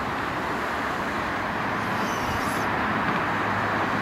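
Steady hiss of road traffic on the overhead road bridge, growing slightly louder.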